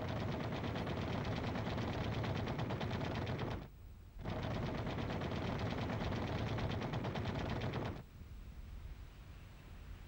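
De Havilland Mosquito night fighter's four 20 mm cannon and four machine guns firing together in two long bursts of rapid fire, each about three and a half seconds, with a short pause between. The firing stops about eight seconds in.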